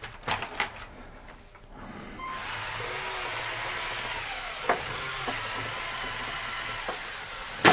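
LEGO Technic large motors, two per axle geared down 1:9, driving a heavy all-wheel-drive telehandler model along. A steady whir from the motors and gears starts about two seconds in and stops near the end.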